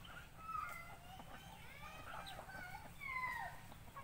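A flock of chickens calling while they feed: many short, sliding chirps and clucks overlapping, with one louder falling call about three seconds in.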